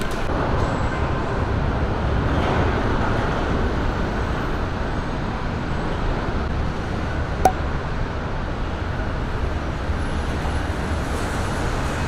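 Steady road traffic noise, a continuous rumble of passing vehicles, with a single sharp knock past the middle.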